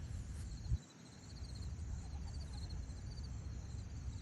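Low, steady rumble of wind on the microphone, with one short bump just under a second in and faint, high, repeated chirps of small birds in the background.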